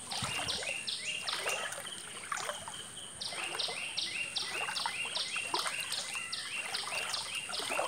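Footsteps wading through shallow floodwater on a road, one splashing step about every second. Behind them a high chirping repeats about three times a second.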